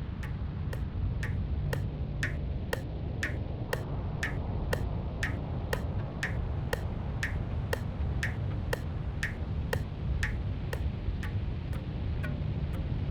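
Steady ticking beat, about two sharp ticks a second, each with a brief ringing tone, over a continuous low rumble.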